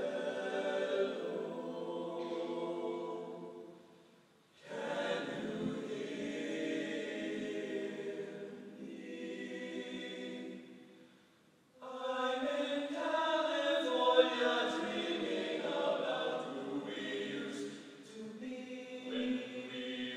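All-male a cappella group singing held chords in close harmony, in three phrases with short pauses about four seconds and eleven and a half seconds in.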